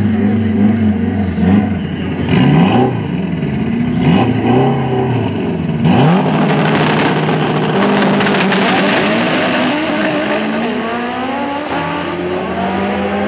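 Front-wheel-drive drag cars, among them a turbocharged Dodge Neon SRT-4, revving up and down at the start line. About six seconds in they launch at full throttle, and the engine pitch climbs again and again through the gears as they run down the track.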